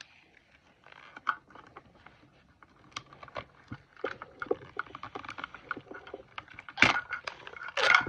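Crinkling and rustling of a printed wrapper being peeled off a small toy inside a plastic capsule, with scattered small clicks and crackles. The crinkling is sparse at first and louder in two bursts near the end.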